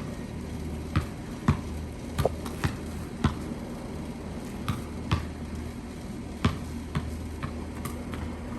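A basketball bouncing on a hard floor: a string of irregularly spaced sharp thuds, about fifteen in all, over a steady low hum.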